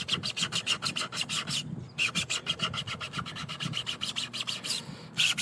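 220-grit sandpaper on a hand sanding tool rubbing over a 3D-printed PLA part, in quick back-and-forth scraping strokes at about seven a second. The strokes pause briefly twice.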